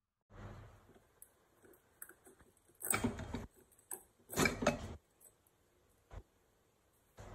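Lid of a United aluminium pressure cooker being twisted loose and lifted off: metal scraping and clattering, loudest in two short scrapes about three and four and a half seconds in, with a few light clicks.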